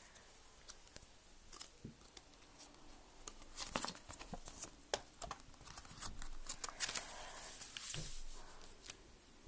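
A folded paper checklist leaflet being unfolded and smoothed flat by hand: irregular crinkling and rustling of paper with small clicks, busiest in the middle and toward the end.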